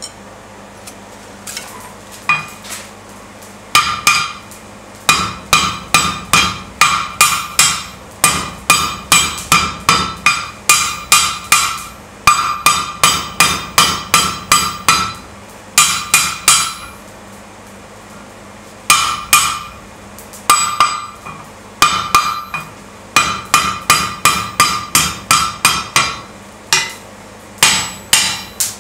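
Blacksmith's hammer striking red-hot steel bar stock over the anvil horn, bending it into a curve. The blows come in runs of about two to three a second, each with a bright metallic ring, and break off for short pauses between runs.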